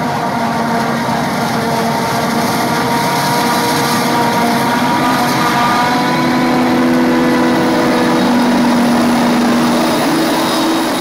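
Claas Jaguar forage harvester running under load while cutting and chopping standing maize for silage: a loud, steady machine drone with whining tones that shift slowly in pitch.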